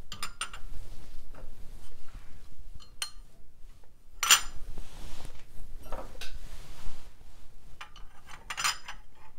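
Noritake Armand china teacups clinking against each other and a wire cup rack as they are set in and nested one by one, with soft rubbing between the clinks. The loudest clink comes about four seconds in, and a short run of clinks comes near the end.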